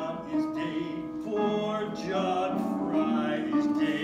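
Music with a melody of held notes.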